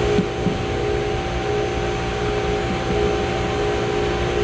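Steady machinery drone, an even hiss with a constant multi-tone hum running under it.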